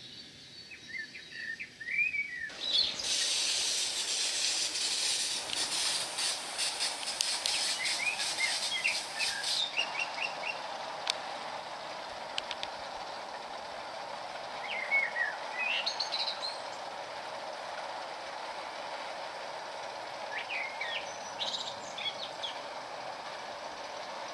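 Gauge 1 live-steam model train running past on garden track: a hissing rush with rapid clicking for several seconds, then a steadier, softer running sound. Songbirds chirp in short bursts throughout.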